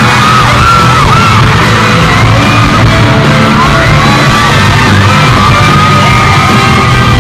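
Live rock band playing loud, electric guitar on stage, with fans screaming and whooping over the music throughout.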